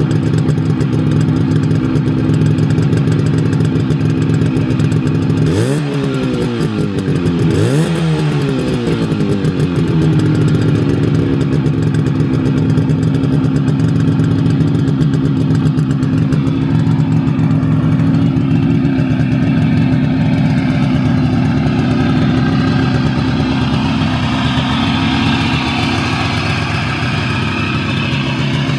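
Adler MB250 motorcycle's air-cooled two-stroke twin engine running again after restoration, revved twice about two seconds apart, each rev rising and falling back, then idling steadily.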